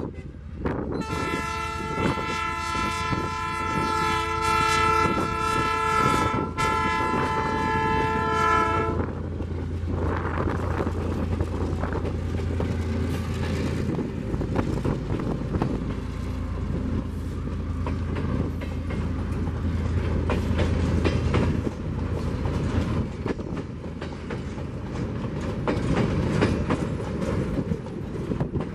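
EMD GR12W diesel locomotive's horn sounding one long blast with a brief break near its end, from about a second in to about nine seconds. Then the locomotive passes close by, followed by the wheels of the flat wagons clattering over the rail joints.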